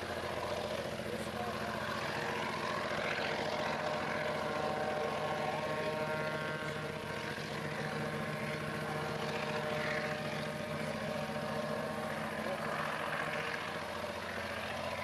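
Diesel locomotives of a freight train passing under power, their engines giving a steady drone.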